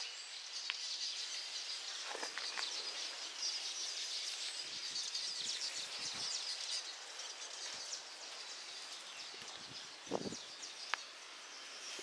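Outdoor wildlife chorus: steady, dense high-pitched chirping throughout, with a few brief soft scuffs about two seconds in and again near the end.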